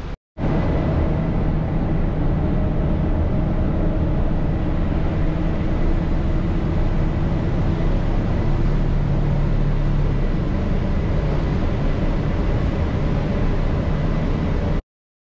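Airport shuttle bus running, a steady drone of engine and road noise with a faint high whine held throughout.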